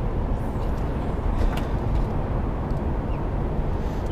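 Steady low rumbling noise, with a couple of faint light clicks about a second and a half in.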